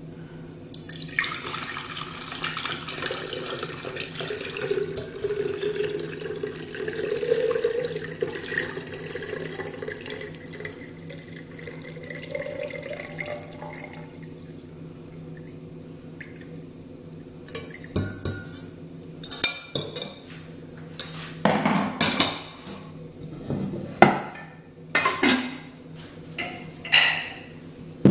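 Hot mint tea is poured from the pot through a strainer into a container: a steady stream of liquid for about twelve seconds, its pitch rising slightly. After a short pause come a series of sharp clinks and knocks of pots, utensils and glass.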